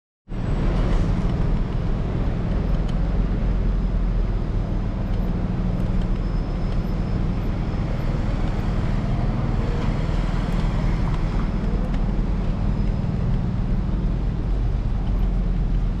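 City street traffic noise picked up by a camera on the handlebars of a moving electric scooter, with a steady low rumble under it. It cuts in suddenly just after the start.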